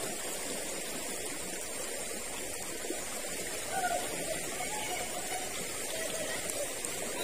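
Steady rush of a fast-flowing river current, with a faint distant voice about four seconds in.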